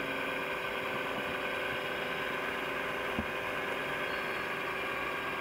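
Steady machine hum with several fixed tones inside an aircraft cabin full of running instrument racks, with a single short knock about three seconds in.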